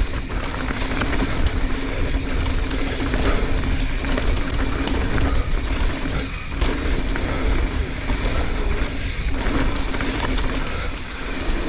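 Mountain bike descending a dirt trail at speed: wind rush on the microphone and tyres rumbling over the ground, with a steady hum running through it that drops out briefly about six seconds in.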